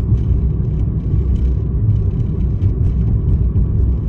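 Steady low rumble of a car driving along a road, with road and engine noise heard from inside the cabin.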